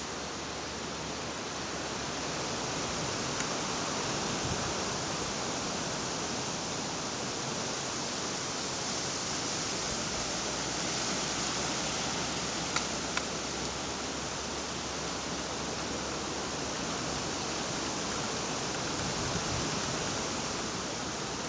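Steady wind noise, an even hiss with no rhythm, with two brief clicks a little after halfway.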